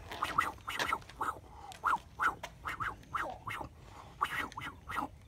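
Toy plastic lightsaber blade swished rapidly back and forth through the air, a short whistling whoosh with each swing, about two or three a second.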